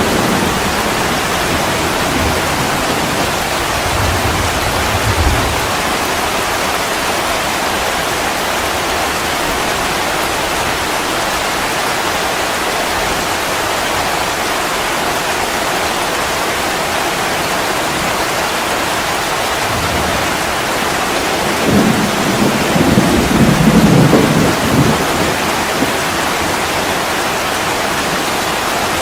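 Steady rain falling in a dense, even hiss. A short low rumble of thunder comes about four seconds in, and a longer, louder rumble a little over twenty seconds in.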